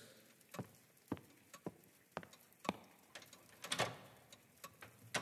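Foley sound effects: light, sharp knocks about two a second, with a louder, longer rustling noise a little before four seconds in, then a few more knocks near the end.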